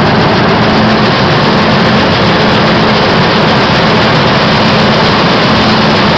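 5XZ-6 gravity separator running: its vibrating deck and blower make a loud, steady rush as palm kernels and shells rattle across the deck, over a steady hum that drops out briefly now and then.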